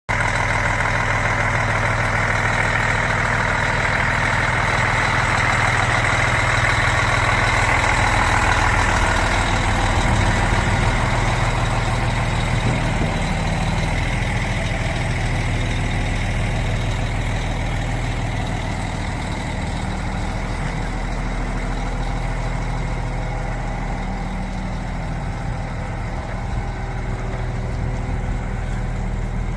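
Diesel engine of a 2006 Junjin JJ-H5017 50 m concrete pump truck running steadily. A harsher, higher mechanical noise rides on top and is loudest for the first ten seconds or so, then eases off.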